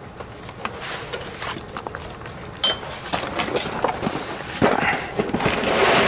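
Knocks, clicks and rustling of someone climbing up through an attic hatch and moving over the rafters, with louder rustling bursts about five seconds in.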